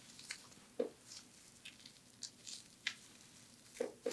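Faint handling sounds of a paper template being pinned onto a wool blanket: scattered light ticks and paper rustles, with a few soft knocks, the firmest about a second in and two just before the end.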